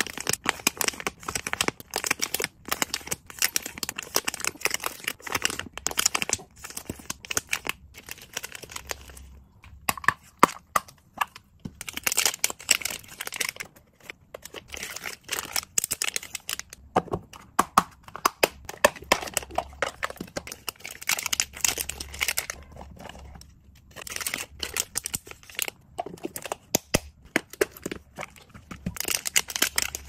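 Thin clear plastic zip-lock bags crinkling and crackling as fingers handle them and pull their zip seals open, in dense runs of close, sharp crackles broken by a few short pauses.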